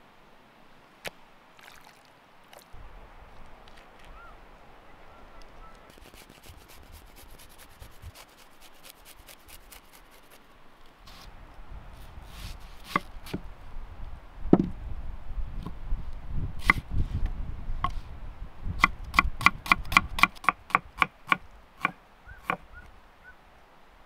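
Kitchen knife cutting on a wooden cutting board, through raw liver and then a red onion. It ends in a run of quick, even chops, about four a second, over a deep rumble.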